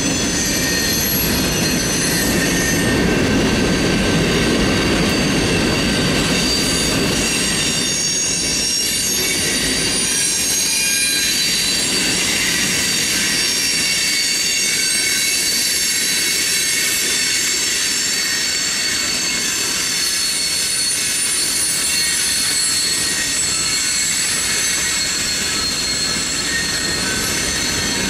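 Cars of a manifest freight train rolling past: a rumble of wheels on rail, heavier in the first ten seconds or so, with high, steady wheel squeal ringing over it.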